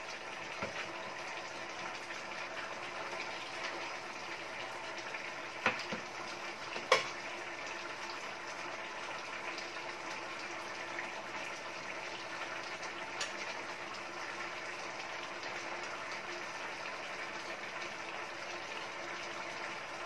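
Pork adobo in its soy and vinegar sauce boiling steadily in a stainless steel skillet, with two sharp clinks against the pan about a second apart, near six and seven seconds in.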